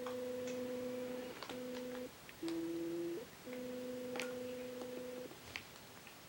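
A person humming a few long, steady notes with short breaks between them, one note sliding up in pitch at its end, along with a few faint clicks.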